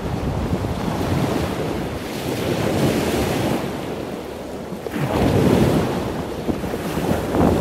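Wind blowing over the microphone outdoors, a rough rushing noise that gusts louder about five seconds in and again near the end.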